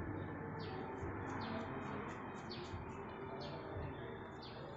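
Small birds chirping repeatedly in short, high notes that slide downward, about two a second, over a steady low background hum.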